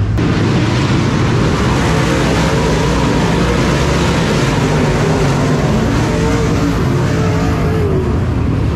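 Several dirt late model race cars' V8 engines running on the track: a dense, steady engine noise whose pitch wavers up and down.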